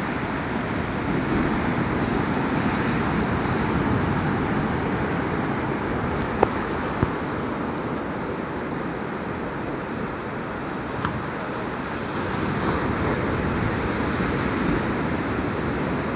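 Sea surf washing onto a beach as a steady rush of noise that swells gently, with a few brief sharp clicks near the middle.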